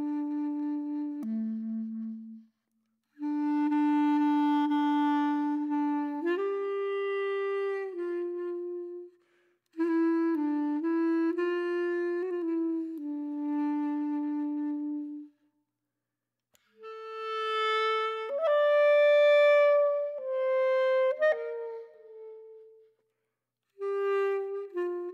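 Background music: a single melody line, woodwind-like, played in phrases with brief pauses between them.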